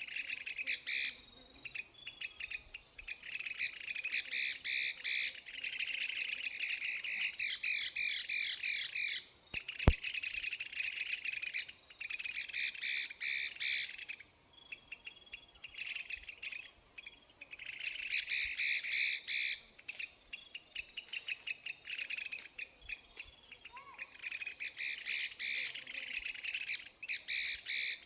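Bạch mi laughingthrush singing a rapid, continuous, high-pitched song full of fast trills, broken by a few short pauses. A single sharp click about ten seconds in.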